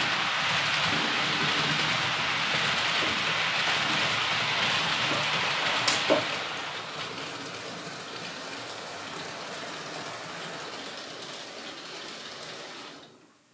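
Steady hiss of heavy rain, with two sharp clicks about six seconds in; the rain then grows quieter and cuts off abruptly near the end.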